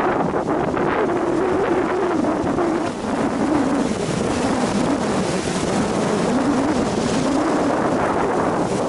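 Sea waves washing against a rocky shore, with strong wind buffeting the microphone: a steady rush of noise with no separate crashes.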